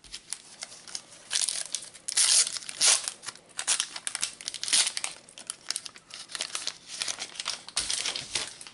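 Foil wrapper of a Panini Adrenalyn XL trading-card packet crinkling and tearing as it is handled and ripped open, an irregular crackly rustle that is loudest a couple of seconds in.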